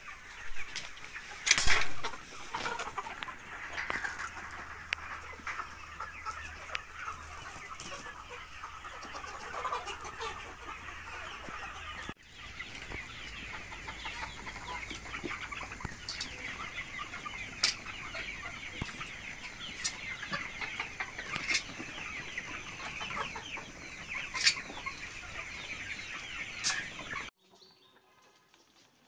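A large flock of hens clucking and chattering continuously, with a loud knock about two seconds in and scattered sharp clicks. The sound cuts off abruptly shortly before the end.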